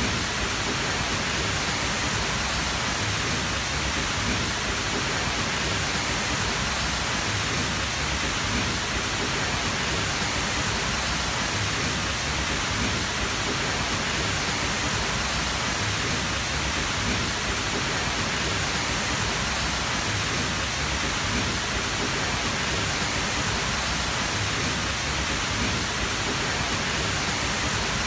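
Tall waterfall: a dense, steady rush of falling water with no change throughout.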